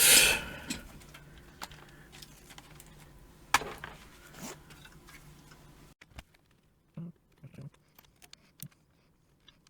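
Scattered light clicks and taps of plastic and metal parts being handled and fitted inside a desktop computer case, with one sharper click about three and a half seconds in.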